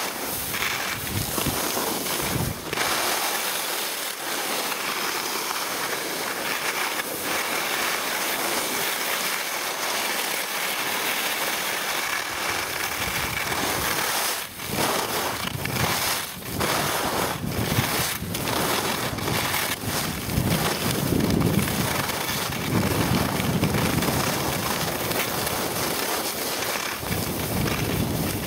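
Wind rushing over the microphone and skis scraping over snow during a downhill ski run: a steady hiss with a few sharp knocks, heavier and rumbling from about twenty seconds in.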